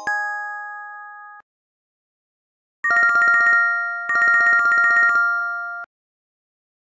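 Pantech PG-6100 ringtones played in the MidRadio player. The last chord of one tone dies away in the first second and a half. After a pause, a short electronic chime plays twice: a fast trill of high bell-like notes over a held lower note.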